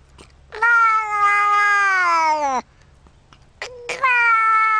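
Domestic cat meowing: one long drawn-out meow of about two seconds that sinks in pitch at the end, then after a short pause a second long meow that starts near the end.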